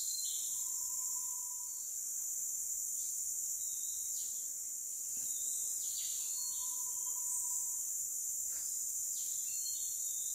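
Steady high-pitched chorus of forest insects, with scattered short bird chirps and two long, even whistled notes, one about half a second in and one about six seconds in.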